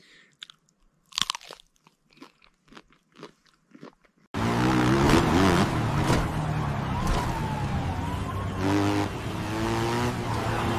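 Crunching and chewing of nuts and berries, a handful of short crisp crunches. About four seconds in, a dirt bike engine cuts in loud and runs on, its pitch rising and falling as it revs.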